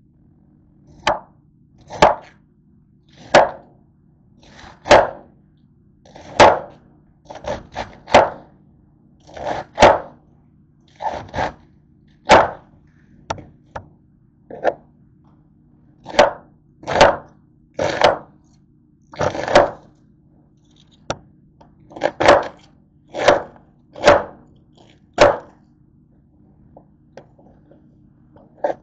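Kitchen knife slicing through a half head of green cabbage, each stroke ending in a knock on the cutting board, about one chop a second at an uneven pace. A faint steady low hum runs underneath.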